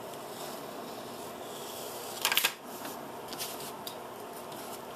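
Utility knife cutting a manila file folder and the folder being handled: a short, loud papery crackle just over two seconds in, then a few light ticks, over a steady background hum.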